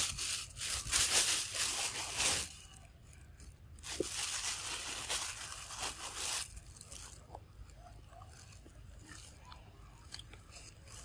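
Dense crackling, crunching noise in two spells of about two and a half seconds each, the second starting about four seconds in, then fainter scattered clicks.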